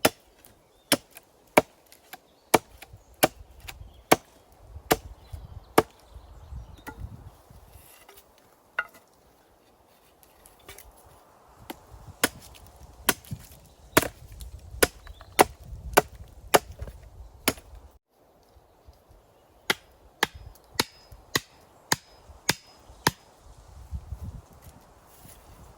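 An axe chopping wood: sharp strikes at roughly one or two a second, in three runs with short pauses between them.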